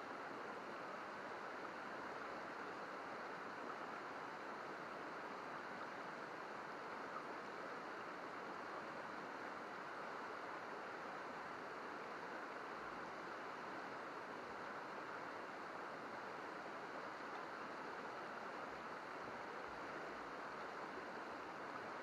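Shallow river water babbling steadily over rocks and riffles.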